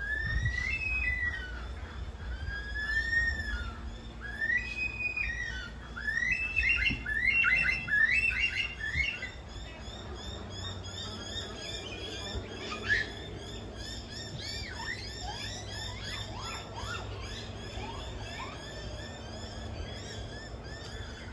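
Birds calling. A run of loud whistled notes sweeps up and down, repeating about every second for the first nine seconds, then gives way to a denser chorus of small high chirps.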